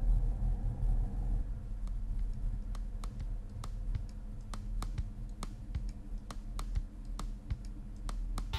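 2005 Jeep Grand Cherokee rolling slowly over a packed-snow road: a steady low rumble, with irregular sharp clicks a couple of times a second.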